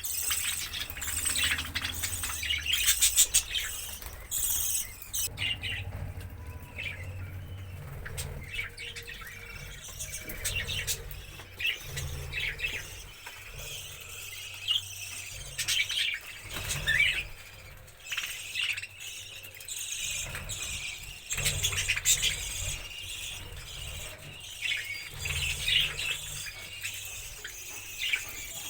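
Small pet parrots giving many short, shrill chirps and squeals over and over, with a low rumble coming and going underneath.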